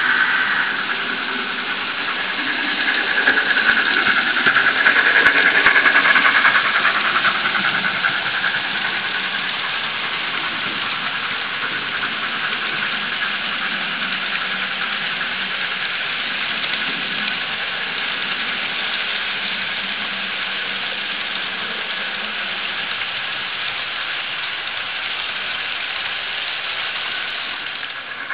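Model railway freight cars rolling past on the layout's track, a steady rumble and rattle of wheels on rail that is a little louder in the first few seconds.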